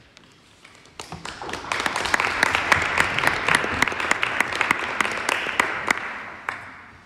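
Audience applauding: many hands clapping, starting about a second in, building quickly, then dying away near the end.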